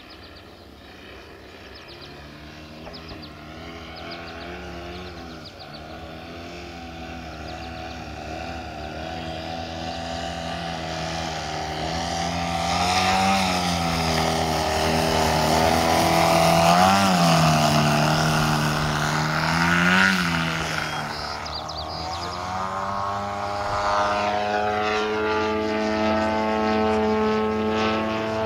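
Desert Aircraft DA-100 twin-cylinder two-stroke gas engine and propeller of a giant-scale MX-2 aerobatic RC plane in flight, as the throttle is worked. The engine note grows steadily louder toward the middle and swings sharply up and down in pitch three times as the plane passes and maneuvers. It then eases off a little and builds again near the end.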